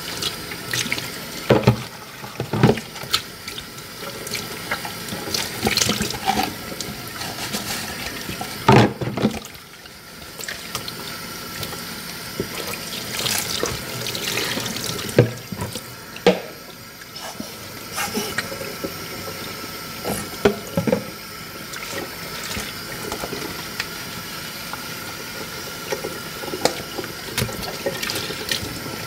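Washing dishes in a kitchen sink: tap water running steadily while plates, pots and cutlery knock and clink against each other every few seconds, a few of the knocks much louder than the rest.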